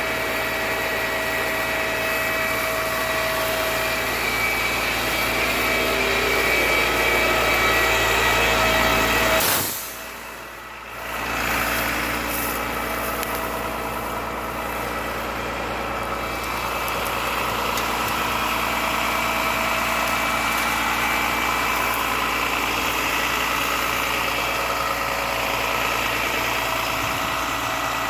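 Fire truck engine idling steadily, with a short drop in level about ten seconds in.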